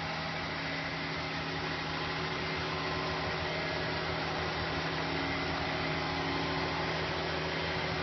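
John Deere 772GP motor grader's diesel engine running steadily at a constant pitch while its blade pushes loose soil.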